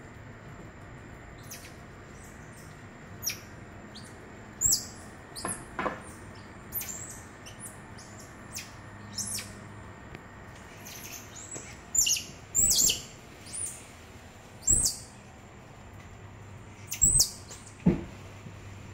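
Squirrel monkeys (titi monkeys) giving many short, high-pitched chirps, scattered and sometimes in quick pairs, with a few sharp knocks mixed in. A faint steady high tone sits underneath.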